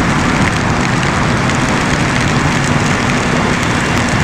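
Steady rush of wind and heavy rain on a BMW S1000RR ridden at speed, with the inline-four engine's steady drone underneath and scattered sharp ticks of raindrops striking the helmet visor and camera.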